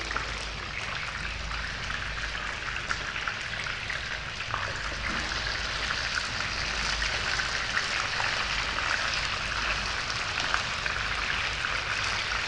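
Courgette rounds frying in hot olive oil over high heat: a steady sizzle with fine crackles.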